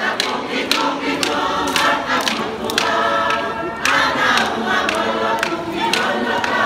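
Tongan lakalaka: a large mixed group of dancers singing in unaccompanied chorus, with many sharp claps cutting through the singing at uneven moments.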